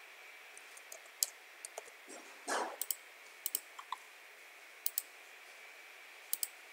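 Scattered single clicks of a computer mouse and keyboard, a few at a time, with a short, louder noise about two and a half seconds in. A faint steady high hum runs underneath.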